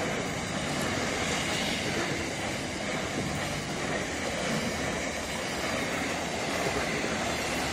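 Container freight train passing close by at speed: a steady, unbroken noise of wagon wheels running on the rails.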